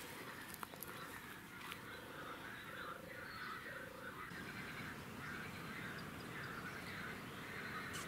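Faint animal calls: a few short low calls in the first half, then a call repeated about twice a second from about halfway through.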